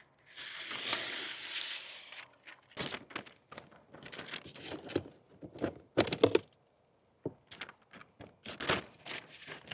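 Water-resistant contact paper being handled and stuck down: about two seconds of rough rustling near the start, then scattered crinkles, taps and light knocks.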